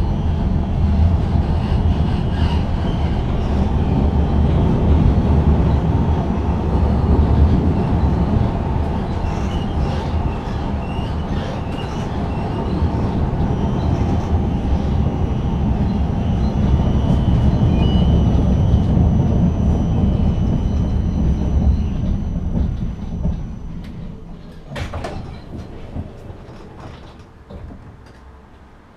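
Tram heard from inside the passenger car: a steady low rumble of wheels on street rails, then slowing to a stop about 23 seconds in, the rumble dying away. There is a sharp click just after it stops.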